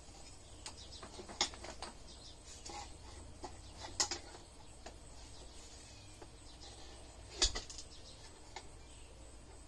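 Handling noise of a swing's ropes and metal hanging hardware being worked overhead: rustling and scattered light clicks, with three sharper knocks a few seconds apart.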